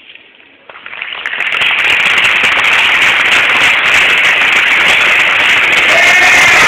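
Audience applause, starting about a second in and swelling quickly into loud, dense clapping, with voices cheering over it near the end.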